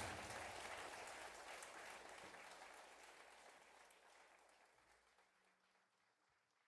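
Theatre audience applauding at the end of a song, the clapping steadily fading out.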